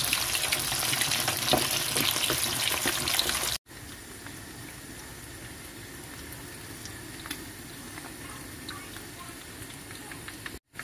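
Pre-cooked chicken pieces frying in hot vegetable oil in a wok: a loud, even sizzle with many small crackling pops. It drops out briefly about three and a half seconds in and comes back as a quieter, steady sizzle with only occasional pops.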